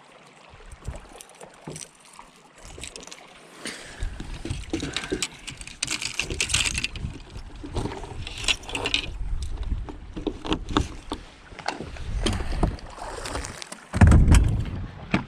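Sounds on a fishing boat on open water: gusty wind rumbling on the microphone, with scattered light clicks and knocks. The wind grows stronger after a quieter first few seconds and surges loudly near the end.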